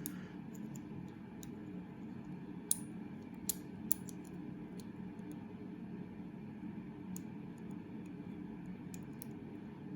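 Faint, irregular metallic clicks of a lock pick and tension wrench working in the keyway of a Kryptonite heavy padlock, with three sharper clicks about three to four seconds in, over a steady low hum.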